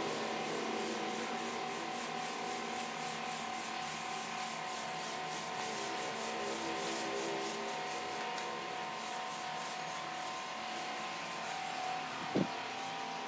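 Rhythmic rubbing strokes of a small paint roller or cloth worked back and forth over a textured painted wall, a steady scratchy hiss. There is one short knock near the end.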